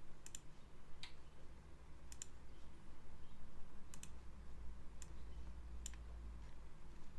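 Computer mouse clicking: about six sharp clicks, several of them quick double-clicks, over a faint low hum.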